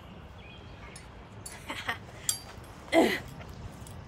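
Leather jacket rustling and a handlebar knocking as the bars are wedged against the body, then a short vocal exclamation from a woman, falling in pitch, about three seconds in.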